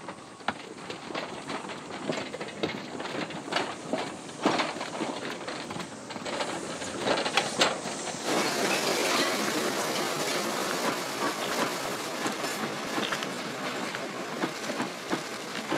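Railway sounds of a train rolling, with scattered knocks and clanks. About eight seconds in they change suddenly to a steadier, louder rushing noise.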